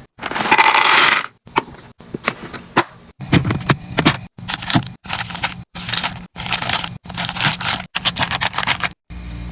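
Food packaging and containers being handled, scraped and set down in a rapid series of short clips, each cut off abruptly. A louder rustle comes in the first second, and a steady low hum starts near the end.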